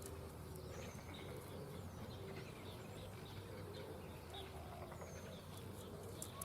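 Faint birds chirping and calling, with scattered short high notes over a steady low background hum.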